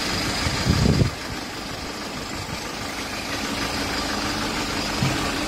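A vehicle engine running steadily at idle, with a brief louder low rumble about a second in.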